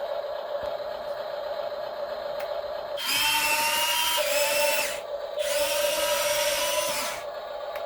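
Electric motors of a radio-controlled excavator whining steadily. About three seconds in, a louder, higher whine with stepping pitch starts; it breaks off briefly near five seconds, comes back, then drops away about seven seconds in.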